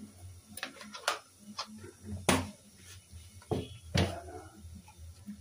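A spatula knocking and scraping against a pan of cooked rice: about half a dozen sharp clicks, the loudest about two and four seconds in, over a low steady hum.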